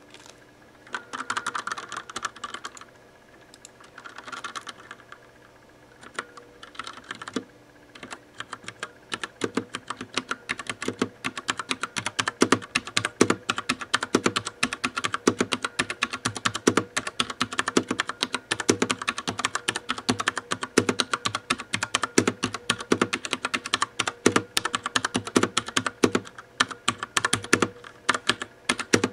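Das Keyboard mechanical keyboard with Cherry MX Brown switches being typed on fast, a dense run of key clicks and clacks. In the first few seconds there are instead a couple of short scratchy rubbing bursts.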